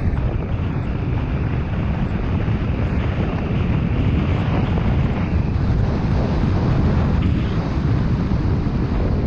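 Wind rushing over the microphone of a mountain bike descending a gravel and dirt trail, with the tyres rolling over the dirt. Steady throughout.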